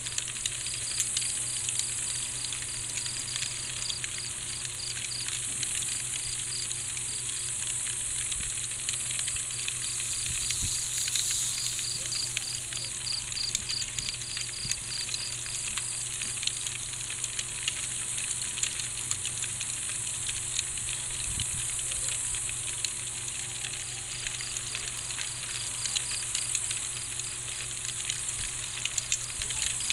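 Night ambience of crickets: a fast, pulsing cricket trill that drops out for several seconds past the middle, over a steady high hiss of insects, with fine crackling throughout.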